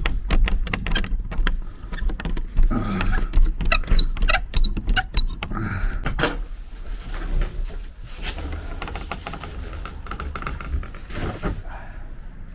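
Irregular knocks, clatter and a few short squeaks over a low rumble, giving way after about eight seconds to a steadier low rumble.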